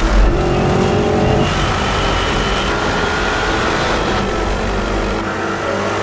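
Porsche Cayenne Turbo GT's twin-turbo V8 pulling hard under acceleration, its note climbing gently, with a heavy low thump right at the start.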